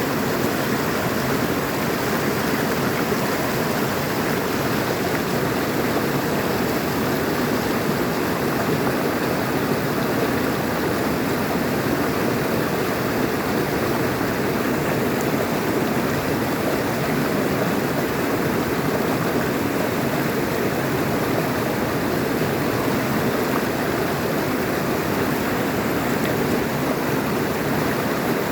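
Water flowing over stones in a stream, a steady rushing and splashing with no change in level.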